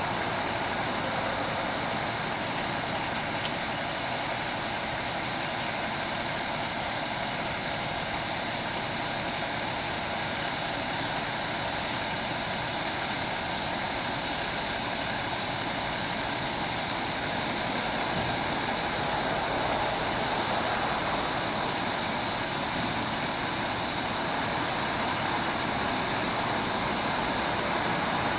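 Steady, even rushing noise with no clear engine note, with a single sharp click about three and a half seconds in.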